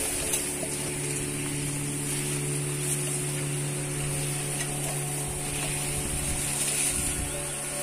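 Background music of sustained low notes that come in about a second in, over a steady high-pitched hiss.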